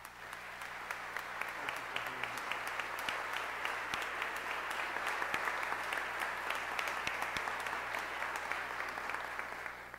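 Audience applauding to welcome a speaker, rising straight away and dying away near the end.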